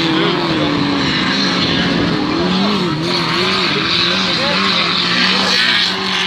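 Race car engines revving hard around a dirt track, their pitch rising and falling again and again as the drivers accelerate, lift and shift, with more than one engine running at once.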